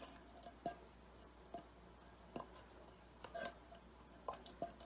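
Silicone spatula scraping thick media crema out of a tin can: faint, scattered light scrapes and ticks, about half a dozen.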